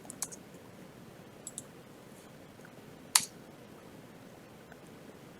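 A few scattered computer keyboard keystrokes, the loudest single click about three seconds in, over a faint steady hiss.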